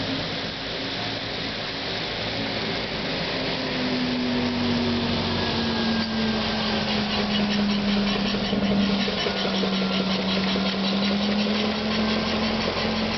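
ZiU-9 trolleybus driving past, its electric traction motor giving a steady hum that grows louder as it comes close and dips slightly in pitch as it passes, over tyre noise from the wet road.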